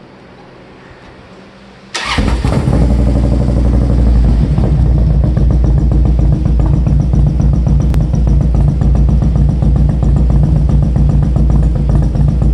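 Harley-Davidson Electra Glide's Twin Cam 96 V-twin, fitted with Sharkroad aftermarket pipes, is started about two seconds in. It catches at once and runs loud and steady through the exhaust.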